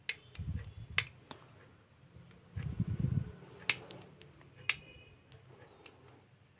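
A blade scraping the terminal of a small lead-acid battery in short, sharp scrapes and clicks, clearing the corrosion-like coating so that solder will take. Twice there is a brief low rumble of handling.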